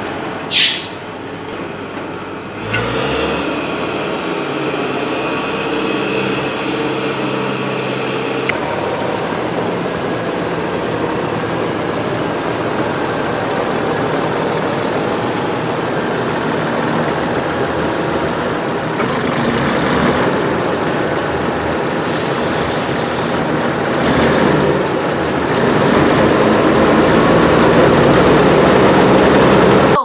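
Challenger tractor's diesel engine running steadily, with a few short hisses of air about two-thirds of the way through.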